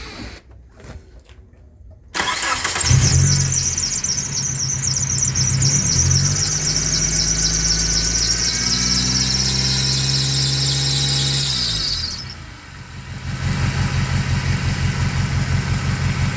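2003 Mitsubishi Eclipse engine starting about two seconds in, with a loud high-pitched belt squeal that lasts about ten seconds and falls slightly in pitch, then stops, leaving the engine running with an even pulse. The mechanic puts the squeal down to the alternator belt.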